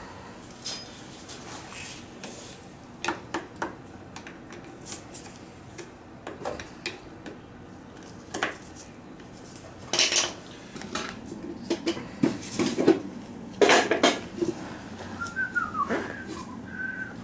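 Scattered metal clinks and knocks from hands and tools working on an oil burner, over a steady low background, with a couple of short high squeaks near the end.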